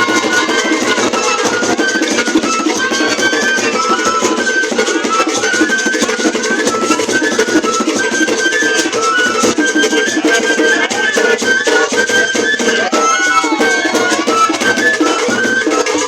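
Background music: percussion keeping a steady beat under a high melody of short repeated notes.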